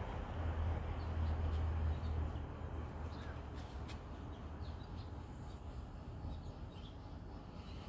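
Birds calling now and then, faint and scattered, over a low rumble of passing traffic that fades away over the first few seconds.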